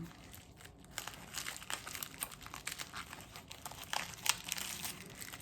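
Packaging being handled and unwrapped, crinkling in the hands as a run of small irregular crackles, the sharpest about four seconds in.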